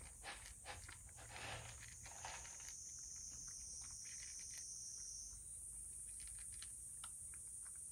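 Cat crunching dry kibble from a bowl: a quick run of small crisp crunches for the first few seconds, then only the odd crunch.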